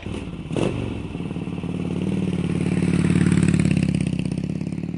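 Motorcycle engine running, with a sharp clack about half a second in; the engine grows louder through the middle and eases off slightly near the end.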